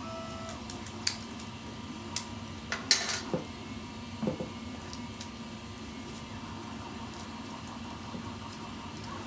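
Hands working tape and yarn onto a cardboard model hand: a few sharp clicks and short crinkles, the loudest about three seconds in, over a faint steady hum.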